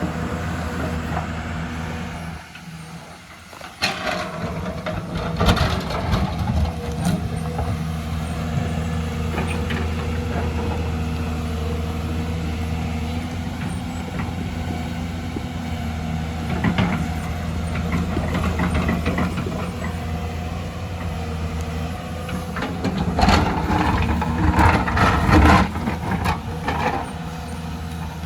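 Excavator's diesel engine running steadily, with knocks and clatter at times, heaviest in the last few seconds. The sound drops briefly about three seconds in.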